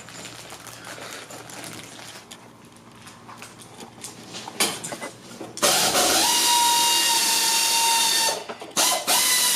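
Faint clicking, then a cordless power tool spinning up and running steadily with a whine for about three seconds, followed by two shorter bursts near the end. It is driving a car fastener that keeps spinning instead of coming loose.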